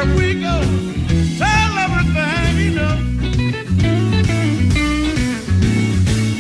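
Electric Chicago blues band playing an instrumental passage: a lead electric guitar plays bent notes over a repeating bass line and drums, with the most pronounced bends about a second and a half in.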